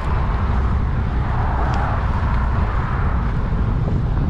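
Wind buffeting the microphone as a bicycle rides into a strong headwind, a heavy, uneven rumble. Road traffic rushes alongside, swelling and fading around the middle.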